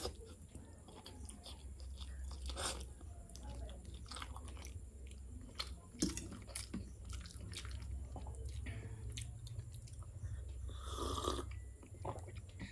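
A person chewing a mouthful of instant noodles, with soft wet mouth clicks and smacks. About eleven seconds in there is a short, louder breathy rush.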